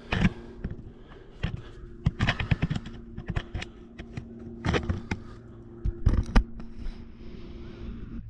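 Irregular metallic clicks and knocks from a long socket-wrench handle being worked on a draw-bolt puller, pulling a frozen wheel bearing into the heated rear hub knuckle of a Holden VY ute. There are several quick clusters of clicks, over a faint steady hum.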